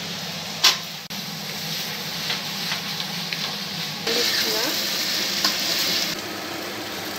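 Sliced onions and carrot sizzling in oil in an aluminium pan as they are stirred, the sizzle loudest for about two seconds past the middle. There is one sharp knock near the start.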